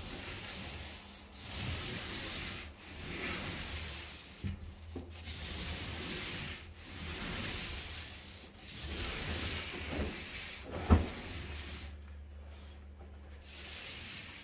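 Paint roller on an extension pole being rolled across a plasterboard ceiling in repeated back-and-forth strokes, a rough rubbing sound for each stroke of a second or two. A single sharp knock sounds late on.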